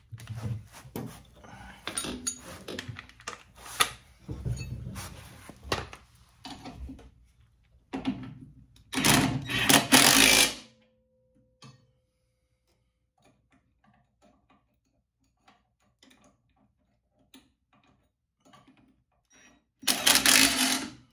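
Metal clanks and clicks as tools and parts are handled, then a Ryobi cordless impact wrench runs in short bursts, tightening down the spring-plate bolts on a VW Beetle's rear suspension: a brief burst about eight seconds in, a longer one about a second later, and another near the end.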